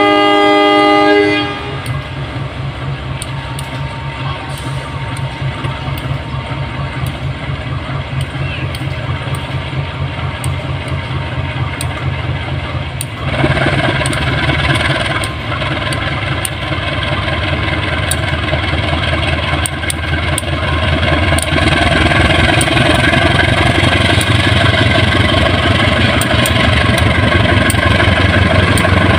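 A KAI CC 201 diesel-electric locomotive's horn ends about a second in. Then the locomotive's diesel engine runs with repeated clicks of wheels over the rail joints as the passenger train passes, getting louder about halfway through.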